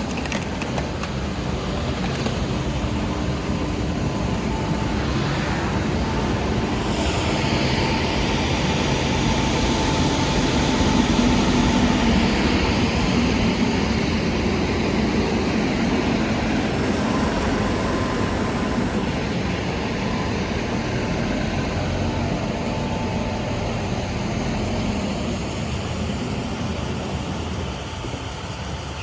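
Merlo telescopic handler's diesel engine running under load as the machine works, swelling about seven seconds in with a rushing hiss on top, then easing off again toward the end.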